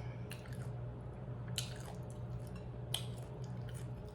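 Close-up chewing of a soft wrap filled with turkey, spinach, pickles and ranch: wet, squishy mouth sounds with a few sharp smacking clicks, over a steady low hum.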